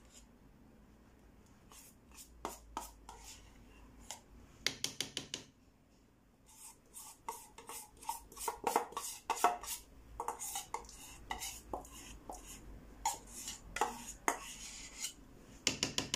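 Metal spoon scraping and knocking against a stainless steel bowl as blended cocoyam paste is scraped out into a pot. Irregular scrapes and clinks, with quick runs of taps about five seconds in and again near the end.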